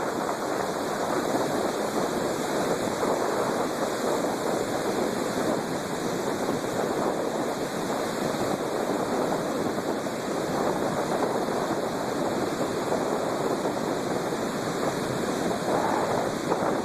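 Storm waves breaking on the shore: a steady rush of surf and churning water, swelling briefly near the end.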